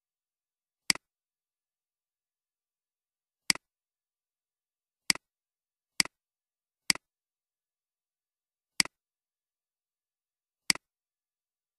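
Seven sharp computer mouse clicks at uneven intervals, with dead silence between them.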